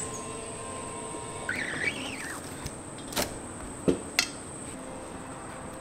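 Hand-operated screen-printing press: a rubber squeegee drags across the inked screen mesh with a squeaky sliding sound, then the metal press and screen frame clack sharply three times as the screen is lifted. A thin steady high whine runs underneath.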